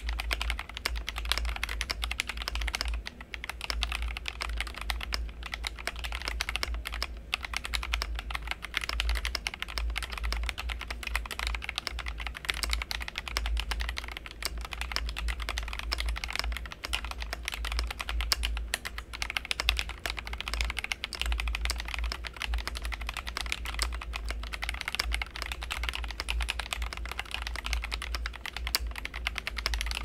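Steady, fast typing on a GMMK Pro mechanical keyboard fitted with NovelKeys Silk Milkshake linear switches and Cherry profile PBT keycaps: a dense, unbroken run of key clicks.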